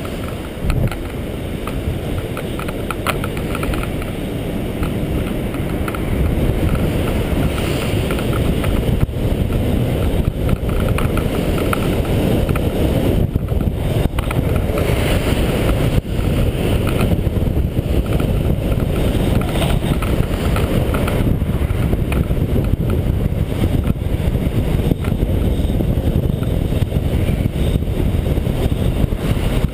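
Inline skate wheels rolling fast on asphalt under a downhill skater, with wind rushing over the microphone; it gets louder about six seconds in.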